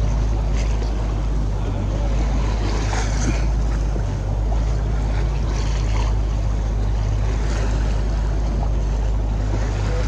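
Boat engine running with a steady low hum, mixed with wind on the microphone and the wash of choppy water.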